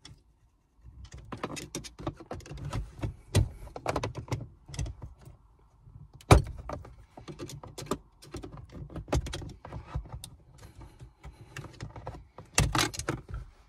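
Irregular clicks, knocks and rattles of hand work on a car's shifter base: an Allen key and the shifter base bushing pieces being worked loose and handled. A sharp knock about six seconds in and a cluster of louder knocks near the end.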